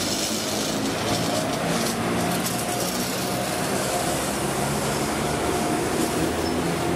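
FS E655 electric locomotive passing close by at the head of a freight train: a steady rushing hum of its running machinery, with a few faint held whining tones.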